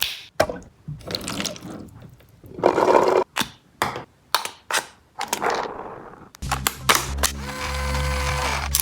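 Plastic toy gun being handled, with sharp clicks, rattles and short scraping bursts, the loudest about three seconds in. About two-thirds of the way through, background music with a steady low bass comes in.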